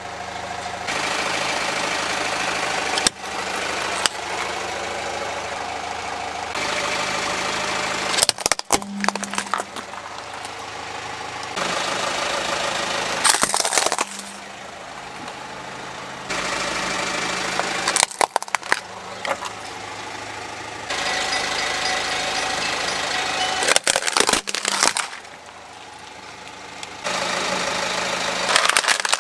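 A car engine running slowly with tyre noise, broken by a sharp crack or crunch every five seconds or so as small objects break under the tyre. The background changes abruptly between the crushes, as one short clip cuts to the next.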